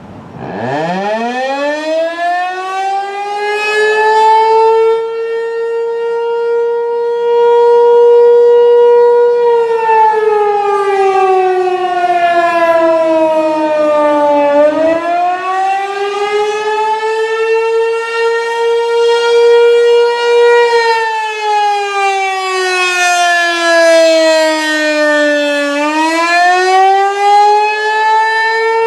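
American Signal Corporation T-128 electromechanical outdoor warning siren sounding the attack signal, a loud wail. It winds up from a standstill to a steady tone, then slowly falls in pitch and rises again twice.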